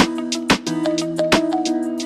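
Background music with a steady beat: held notes over regular drum hits.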